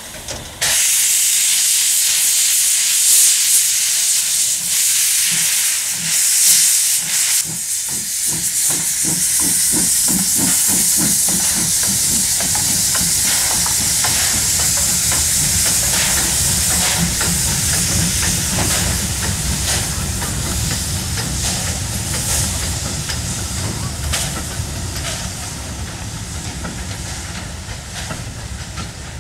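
Steam tank locomotive TKh 05353 starting away with a train: a loud hiss of steam from its open cylinder drain cocks starts suddenly just under a second in, then the exhaust beats begin about eight seconds in and quicken as it gathers speed, growing slowly quieter near the end.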